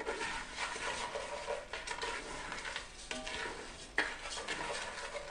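Arborio rice being stirred in olive oil in a heavy-based saucepan, with a soft sizzle as the rice toasts over low heat until translucent, the first stage of a risotto. A single knock about four seconds in.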